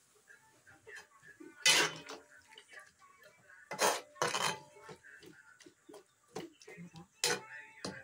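Long metal spatula stirring jackfruit pieces in a stainless steel wok, clanking and scraping against the pan. There are four louder clanks, about two, four, four and a half and seven seconds in, among lighter taps.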